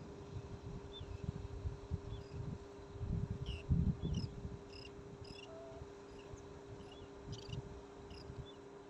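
Wind buffeting the microphone in low, uneven gusts, strongest about three to four seconds in, over a faint steady hum. A string of short, high chirps repeats throughout.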